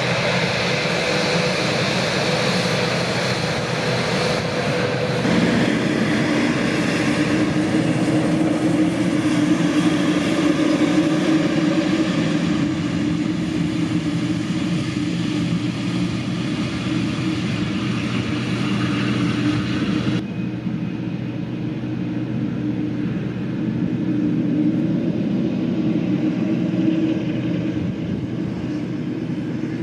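Boeing 787-8 Dreamliner's jet engines running at low taxi power as the airliner taxis: a steady rumble and hum with a steady whine. The hissy top of the sound drops away suddenly about two-thirds of the way through.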